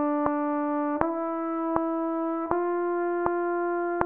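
A trumpet plays sustained notes stepping up the D major scale: the end of an E, then F sharp from about a second in, then G from about two and a half seconds in, each held for two beats and cutting off at the very end. A metronome clicks steadily under it, about every three-quarters of a second.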